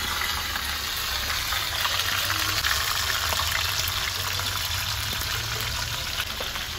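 Running water: a steady rushing hiss that eases slightly over the seconds.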